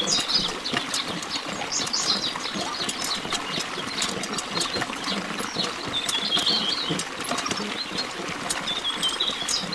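A thin stream of water splashing into a shallow pool, a steady patter with many small drips, while birds chirp a few times over it.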